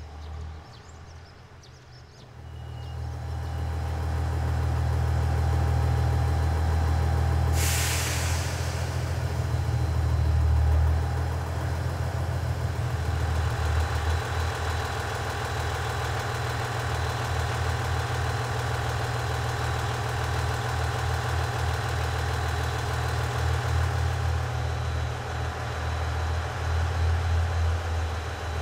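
HC85 series hybrid train's diesel generator engine idling while the train stands, a steady low drone with a faint whine above it. A short burst of hissing compressed air, typical of brake air being let out, comes about eight seconds in.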